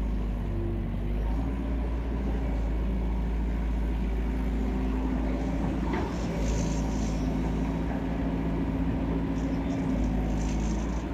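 Diesel engine of an excavator running steadily under work, its pitch rising and falling a little, with a single knock about six seconds in.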